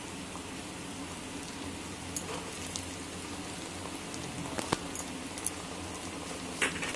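Onions, green chillies and ginger-garlic paste frying in hot mustard oil: a steady sizzle with scattered sharp pops and crackles.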